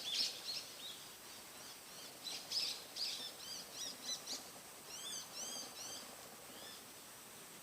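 Bull-headed shrike singing: a quick run of varied high chirps and short arched notes that stops about seven seconds in.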